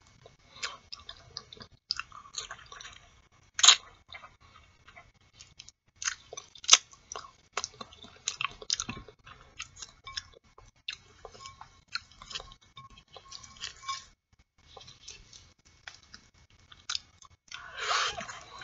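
Close-miked mouth sounds of eating boiled artichoke leaves: wet chewing and leaves drawn between the teeth, with many small sharp clicks. Two louder clicks come about four and seven seconds in, and a denser stretch of scraping mouth noise near the end.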